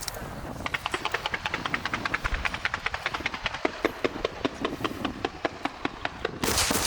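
Aerial fireworks crackling: a rapid string of sharp pops, about ten a second, followed near the end by a louder hissing burst.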